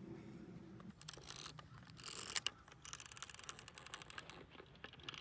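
Faint clicking and ratcheting of a Hasselblad 500 C/M medium-format film camera being handled and operated. It starts as a low hum, then a quick run of small clicks comes in about a second in, with a few louder clicks midway.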